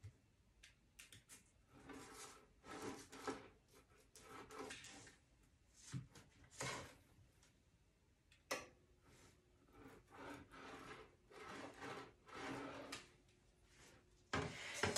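Scissors trimming excess heat transfer vinyl from the edges of a glass pane: soft, irregular scraping and rustling strokes, some louder than others.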